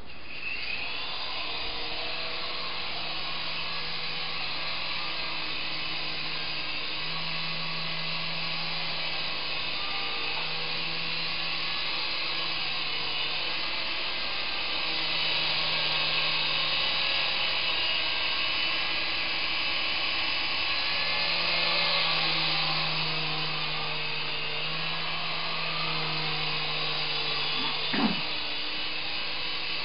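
Small remote-control helicopter's electric rotor motors whining in flight, the pitch and level shifting as the throttle changes and louder around the middle. A brief sharp sound near the end.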